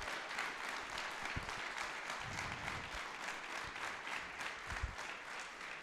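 Audience applauding, a steady patter of many hands clapping that slowly dies down toward the end.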